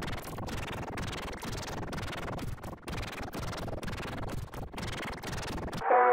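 Harsh crackling static-like noise with many brief dropouts and no clear tune: a heavily distorted audio effect. Near the end it cuts suddenly to a clean synthesized melody.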